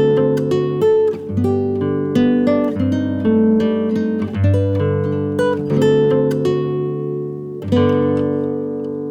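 Background music: acoustic guitar picking and strumming, with a regular pattern of chords.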